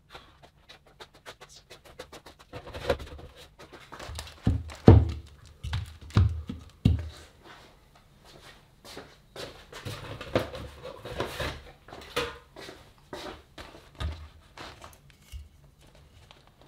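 Handling noise: a quick string of knocks, taps and thuds as objects are moved and set down, with a cluster of heavier thuds about five to seven seconds in and rustling in between.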